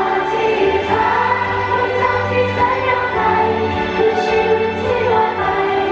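Live pop music: a girl group singing together into microphones over instrumental backing with a steady bass.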